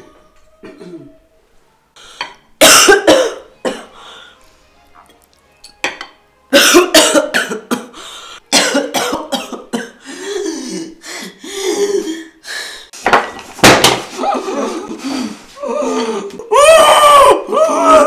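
A woman coughing and gasping in repeated harsh fits, breaking near the end into wavering, unsteady vocal sounds.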